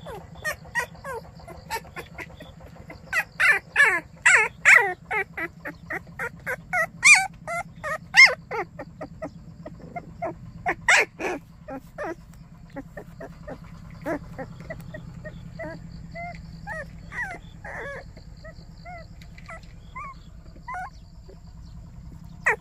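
A litter of young white baekgu puppies crying: a quick run of short high-pitched yelps and whines, busiest and loudest in the first half, thinning to scattered softer whines later.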